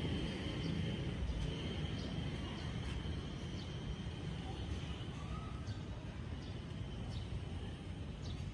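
Outdoor city ambience: a steady low rumble of distant traffic, with a faint high steady tone and a few faint bird chirps over it.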